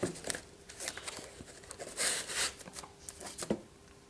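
Packaging rustling and crinkling in uneven short bursts, with a few light clicks, as a model locomotive is lifted out of its box; the loudest rustle comes about two seconds in.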